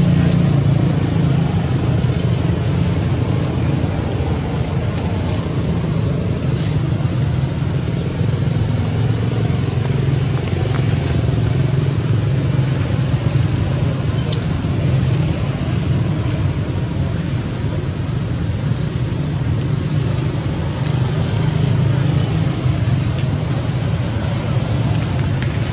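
A steady low rumble of motor noise, with a few faint ticks scattered above it.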